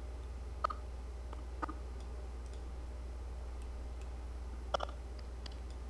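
A few isolated sharp clicks from operating a computer: one about half a second in, another a second later, and a quick double click near the end, with a few fainter ticks between. A steady low hum lies underneath.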